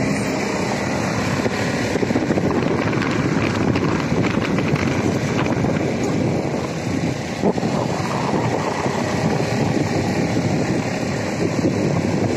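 Wind buffeting the microphone over the steady running noise of a moving road vehicle, with a single knock about seven and a half seconds in.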